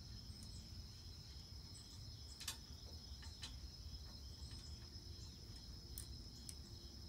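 Steady high-pitched insect chorus, with a few faint metallic clinks of a steel safety chain being handled on a trailer-hitch extension bar, the clearest about two and a half seconds in.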